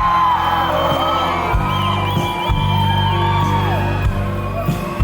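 Music: a high, gliding melodic line over a deep bass that comes in about a second and a half in.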